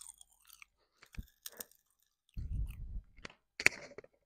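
Popping candy crackling in the mouth: scattered small pops and snaps, with a short low muffled sound about two and a half seconds in and one sharper crack near the end.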